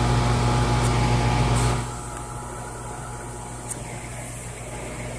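Steady low electrical hum with machine-like noise, with a louder rushing noise over it that drops away about two seconds in.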